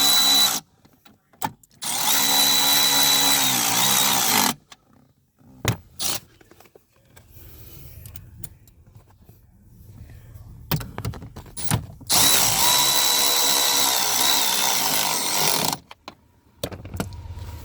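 Cordless drill/driver motor running in two bursts of about three seconds each, the second starting about halfway through, each winding down in pitch as it stops, with short clicks and knocks between them.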